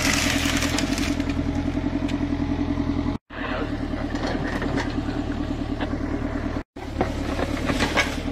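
A Hyundai mini excavator's diesel engine running steadily with a throbbing drone while it digs, with scattered knocks from the bucket working soil and branches. The sound cuts out briefly twice.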